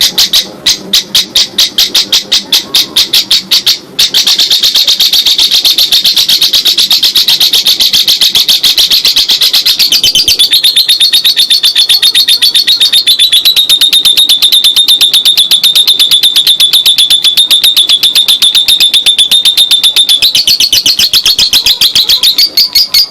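Lovebird giving its long 'ngekek' chattering song: sharp high chirps at about four a second, breaking about four seconds in into a fast, unbroken rattling chatter held for nearly twenty seconds, which drops slightly in pitch about halfway and then cuts off.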